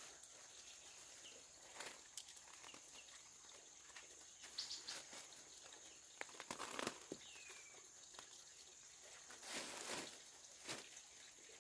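Faint outdoor ambience: a steady high hiss, scattered light rustles and knocks, and a couple of short falling bird chirps.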